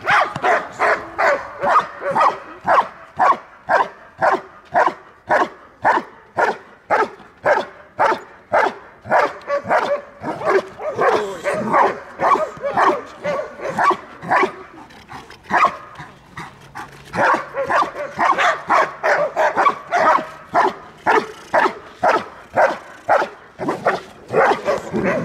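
Belgian Malinois giving continuous, rapid guard barking at a decoy while held back on its harness, about two to three sharp barks a second. The barks weaken briefly about fifteen seconds in.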